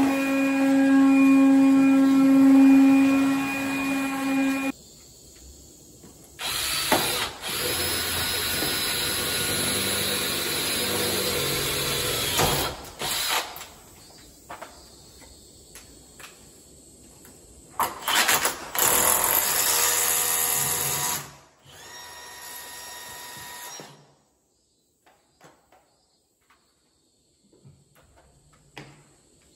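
Electric power tool running in several runs: a steady whine for about five seconds, then two longer, harsher runs of several seconds each with short bursts between them, ending in near silence broken by a few light clicks.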